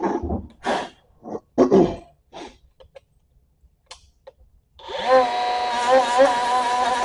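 A few short clatters and knocks, then near silence, then background music starting about five seconds in.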